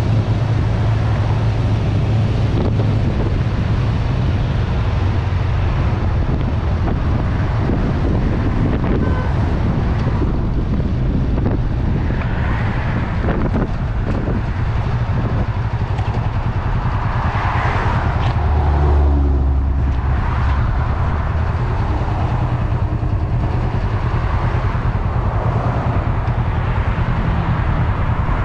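Wind buffeting a handlebar-mounted action camera's microphone over the running 1994 Kawasaki Vulcan 500's parallel-twin engine as the motorcycle rides in city traffic. Near the end it comes to a stop at a light.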